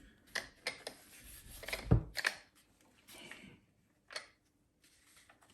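Plastic clicks, knocks and rubbing from a cordless angle grinder with its battery fitted being handled, turned over and set down on a surface, with one firmer knock about two seconds in.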